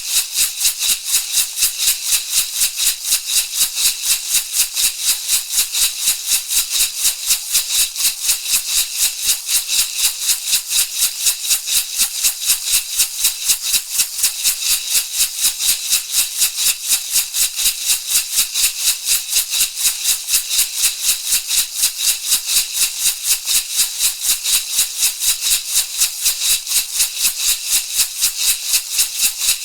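Shamanic rattle shaken in a steady, even rhythm, about three to four shakes a second, each stroke a bright, hissy rattle of the seeds or pebbles inside.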